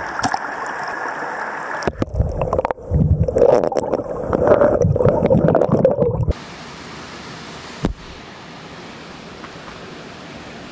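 Creek water flowing, then a waterproof camera dipped under the surface: about two seconds in the sound turns muffled, with loud gurgling and bubbling for some four seconds. This cuts off suddenly into a quieter, steady rush of the stream.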